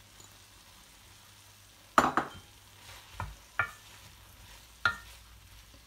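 A wooden spoon stirring freshly added shredded cabbage in a metal kadhai over a faint sizzle. It gives four sharp knocks against the pan, the loudest about two seconds in.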